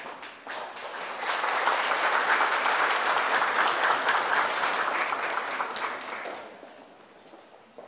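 Audience applauding, swelling over the first second and dying away after about six seconds.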